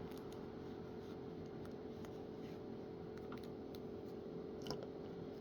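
Faint, scattered small clicks of a plastic action figure and its accessories being handled and fitted, one a little louder near the end, over a steady low hum.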